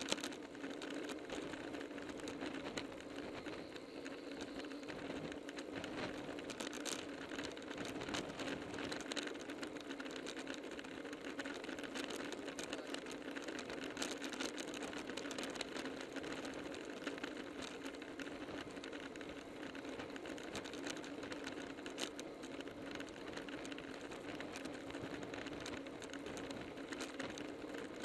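Road bicycle rolling at speed in a group: a steady whir from the tyres and chain drivetrain, with a few sharp clicks along the way.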